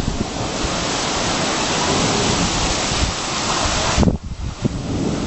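Heavy rain of a thunderstorm hissing steadily, with wind buffeting the microphone in uneven low rumbles. The noise briefly drops out about four seconds in.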